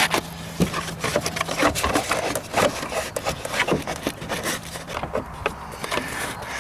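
Plastic air-intake duct being worked into place in its rubber mounts: irregular scraping, rubbing and clicking of plastic on plastic and rubber.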